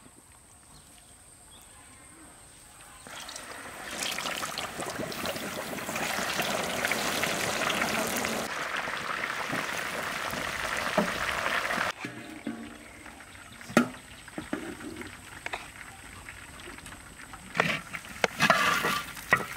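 Hot oil sizzling as a batter-coated whole chicken deep-fries in a large wok. The sizzle starts about three seconds in and cuts off suddenly around twelve seconds, leaving quieter handling noise with scattered clicks.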